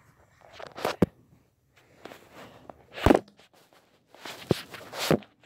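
Rustles and scattered knocks of a camera being handled and set down on a carpeted floor, mixed with footsteps; the loudest knock comes about three seconds in.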